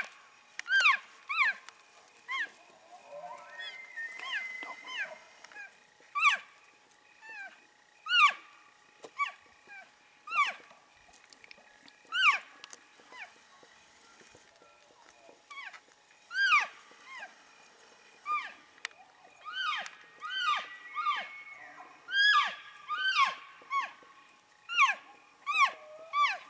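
Cow elk chirping and mewing: short high calls that rise and then drop in pitch, one every second or two, with several animals calling over each other at times. Twice there is a longer, held high note.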